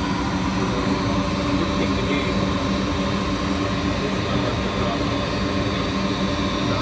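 Goodman gas furnace running with its burners lit: a steady, even machine hum with a fixed pitch from the draft inducer motor.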